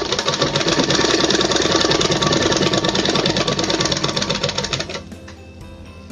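Domestic sewing machine running fast, its needle making a rapid, even clatter as a saree edge is stitched. It stops abruptly about five seconds in.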